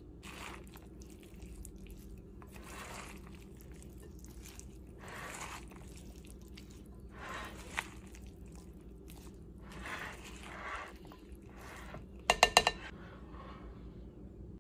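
A silicone spatula stirs a dressed, chunky quinoa and vegetable salad in a glass bowl, making soft wet squishing strokes every couple of seconds. Near the end comes a quick run of about four ringing clinks against the glass bowl.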